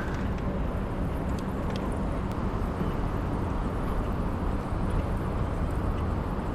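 Steady low rumble of city traffic, with a few faint ticks.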